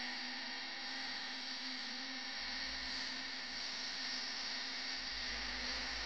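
Steady hiss with a constant low hum, joined by a low rumble a couple of seconds in.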